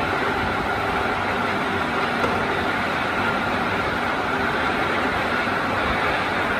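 Metal-working engine lathe running: a steady mechanical hum and whir of the motor and gearing, with a faint click about two seconds in.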